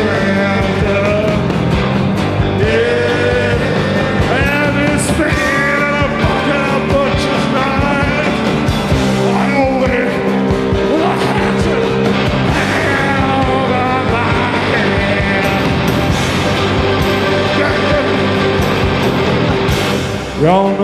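Live rock band playing loud: pounding drums and cymbals under bass, with sliding, wailing tones from the guitars or voice.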